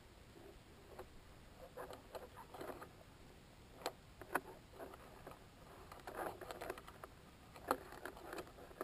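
Faint, irregular clicks and crackles from inside a high-altitude balloon's camera payload box, with a few sharper ticks about halfway through and near the end.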